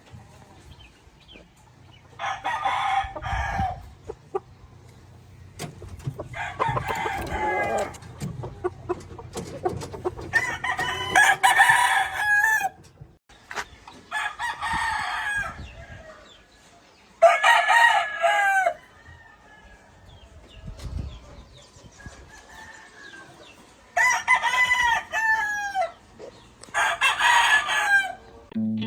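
Gamefowl roosters crowing again and again, about eight crows of a second or two each, one after another with short pauses, one pair overlapping near the middle.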